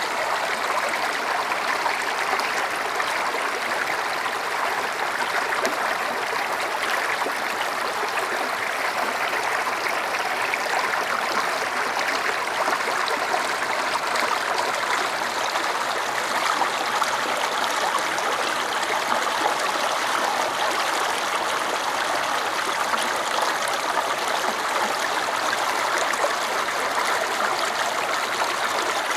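Shallow creek water running over rock, a steady, unbroken rushing babble.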